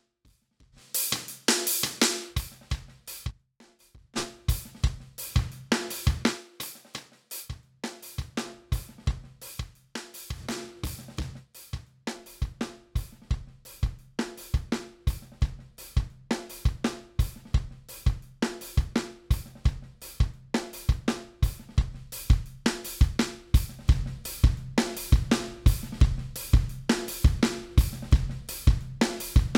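Rock/metal drum-kit loop with kick, snare, hi-hats and cymbals playing a steady beat through the Lindell Audio 80 Series channel-strip plugin. It starts about a second in and breaks off briefly a couple of times, and its tone and compression change as the channel-strip presets are switched.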